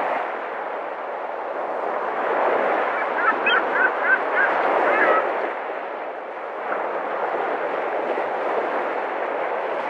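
Steady murmur of many people talking in a large room, with a few short high-pitched chirps about three to five seconds in.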